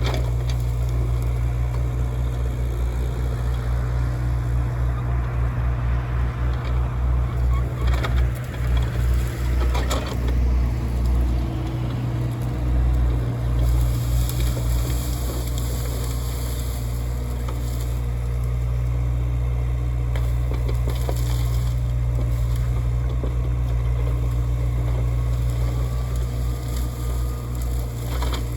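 Hyundai HX60 mini excavator's diesel engine running steadily under working load during land clearing, with a few sharp cracks and knocks about a third of the way in and a stretch of hiss about halfway through.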